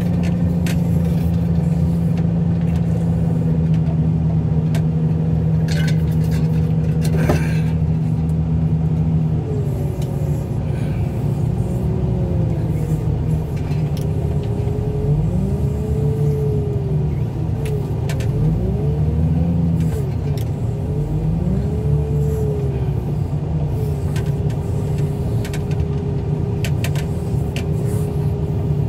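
Wheel loader's diesel engine running steadily as the machine drives. About a third of the way in the engine note drops, and in the second half its pitch rises and falls several times. A single sharp knock comes a little before that.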